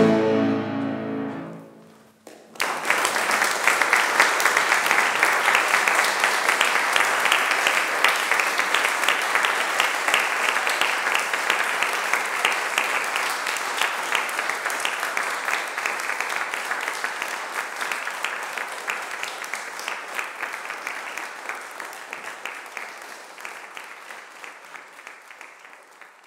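Final chord of a cello and fortepiano dying away, then an audience applauding, the applause slowly fading near the end.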